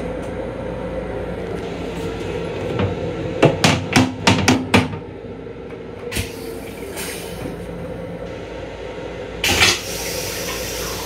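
Steady hum and rumble inside an M7 commuter railcar, with a quick run of about six sharp knocks and clatters about three and a half seconds in, and a short loud hiss near the end.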